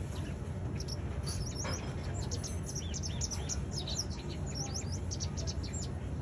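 Pied wagtail calling in quick runs of short, high chirps and twitters, starting about a second in and stopping near the end, over a steady low background rumble.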